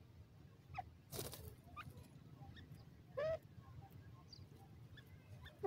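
Grey francolins giving a few soft, short call notes, the loudest a brief rising-then-falling note about three seconds in, with a short rustle about a second in.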